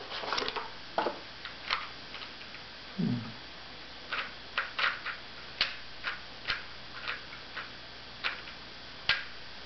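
Alpha V 3x3 speed cube being handled and turned, its plastic layers giving irregular sharp clicks, roughly one every half second to second.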